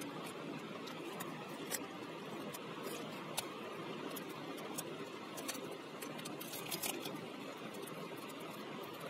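Thin clear plastic wrap crinkling and crackling as it is peeled off a new power bank by hand, in scattered sharp crackles over a steady background hiss.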